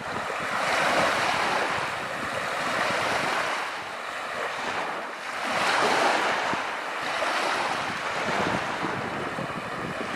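Small sea waves washing onto the shore, the wash swelling and falling every few seconds, loudest about a second in and again near the middle, with wind buffeting the microphone.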